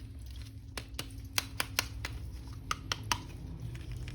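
Light clicks and taps of hands handling a plastic toy figure, about eight in two quick groups, over a low steady hum.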